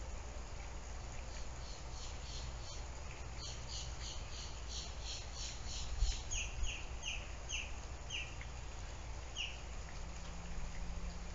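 A run of high, evenly spaced animal chirps, about three a second, over a steady low hum; the later chirps slide downward.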